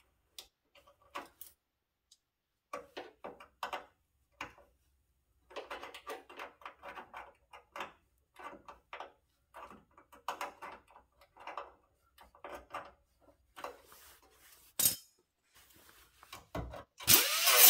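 Scattered light clinks and knocks of sheet-metal pieces and hand tools being handled while a formed cab-corner patch panel is fitted to a pickup's cab. Near the end a loud, steady rushing noise starts.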